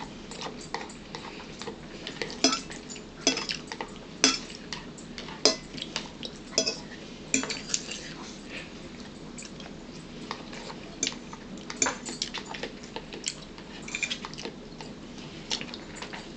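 Forks clinking and tapping against dishes and a bowl while eating: irregular light clicks, with a few sharper taps.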